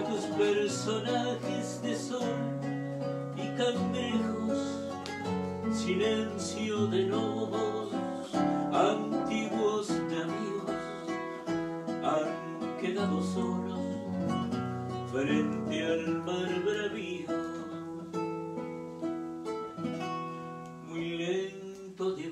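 Acoustic guitar music: an instrumental passage of a folk song, with picked and strummed chords over held bass notes.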